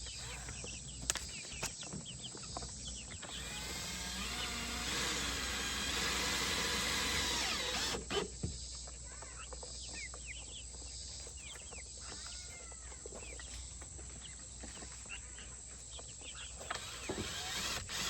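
A power drill driving a screw to fasten a chicken coop door, running for about five seconds from around three seconds in, its pitch sliding as the speed changes, then stopping abruptly.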